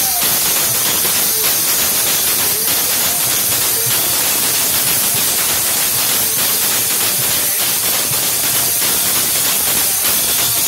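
Chimta, the long steel Punjabi tongs fitted with small jingle discs, played right at the microphone: a dense, continuous metallic jingle with rapid strokes, heavy in the highest pitches, that drowns the rest of the music.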